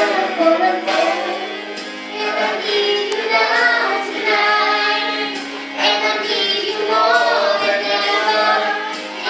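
A woman singing with a music backing.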